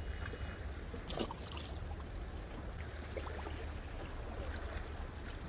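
Steady low rumble with running, lapping water noise, with a short knock about a second in.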